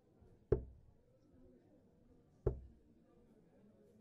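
Two steel-tip darts striking a Winmau Blade 4 bristle dartboard, about two seconds apart. Each hit is a short, sharp thud.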